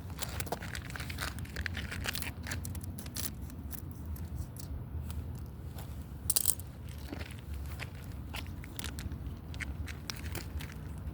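Packaging for a vinegar volcano kit crinkling, tearing and being cut open with scissors: irregular crackles and snips, one louder crackle about six seconds in, over a low steady hum.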